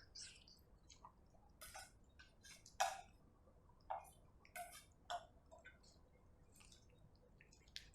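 A cat eating: irregular soft wet clicks and smacks of chewing, the sharpest about three seconds in.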